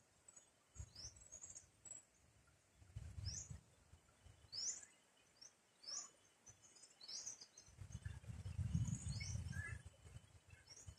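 Small birds chirping, short rising calls repeated every half second to a second, with a low rumble that swells briefly about three seconds in and again, loudest, from about eight to ten seconds in.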